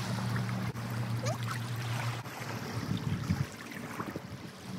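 Small waves washing over the rocks of the shoreline, with wind noise and a low steady hum that stops about two seconds in.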